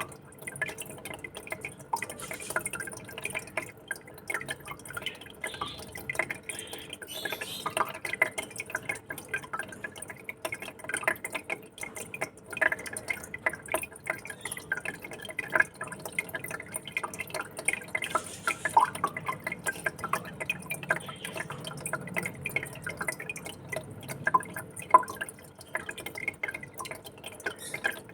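Fish tank water trickling and bubbling: a steady stream of small drips and plinking splashes, over a faint steady hum.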